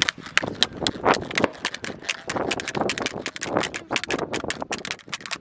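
Fast, irregular tapping and clicking on a plastic kolukattai (modak) mould, many quick taps a second, with short stretches of scratchy rubbing among them.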